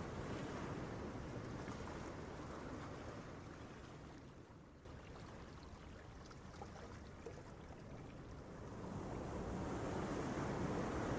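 Gentle waves breaking on a beach: the surf fades to a lull a few seconds in, then swells again as the next wave rolls in near the end.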